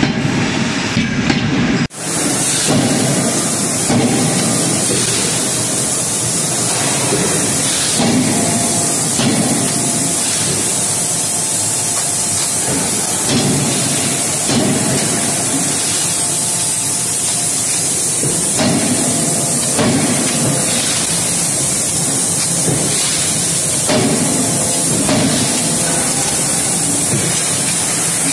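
Forging-line noise: a steady loud hiss with repeated blows of a C92K-16KJ CNC hydraulic die forging hammer, coming in groups of about three a little over a second apart, with pauses of a few seconds between groups. The sound drops out briefly about two seconds in.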